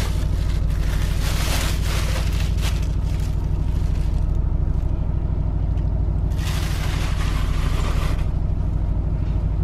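Plastic wrapping crinkling as bedding is pulled out and handled, in two spells, the second starting about six and a half seconds in. Under it runs the steady low hum of a sleeper train carriage.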